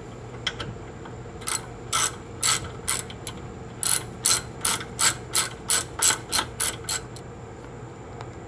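Socket ratchet wrench clicking in short strokes as a rear brake caliper bolt is run in: about five slower strokes, then after a brief pause about a dozen quicker ones.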